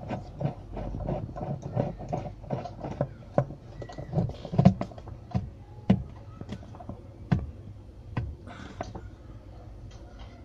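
The screw holding the washing machine's pulsator onto its shaft being tightened: a quick run of clicks, then scattered knocks and clatter of the parts being handled.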